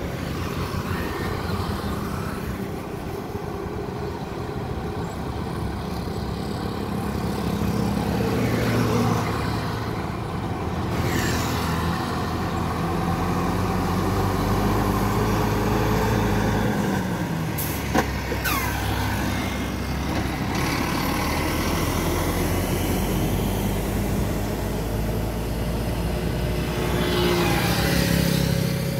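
Volvo FM 400 tipper truck's diesel engine running as the truck drives past on the road, its engine note rising and falling, with motorbikes and scooters passing. A short sharp pop about two-thirds through, and a rushing noise near the end as it passes close.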